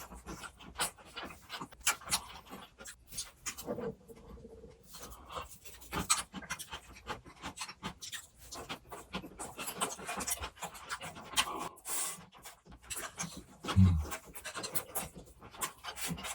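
A person chewing and eating grilled pork belly close to the microphone: irregular wet chewing and mouth sounds with small clicks, and a low thump about fourteen seconds in.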